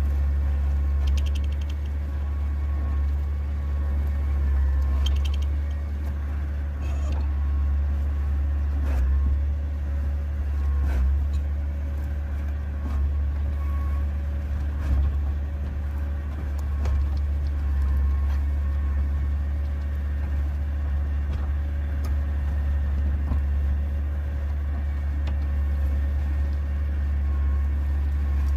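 Tractor engine running at a steady speed: a constant low drone with a few faint clicks over it.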